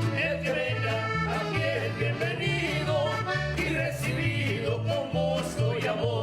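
A Latin American folk song led by accordion over a bass line that steps between notes.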